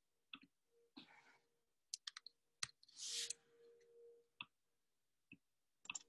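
Near silence broken by a few faint, scattered clicks and a short soft rustle about three seconds in.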